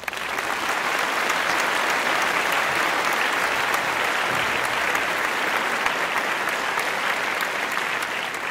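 A crowd applauding: dense, steady clapping that starts abruptly.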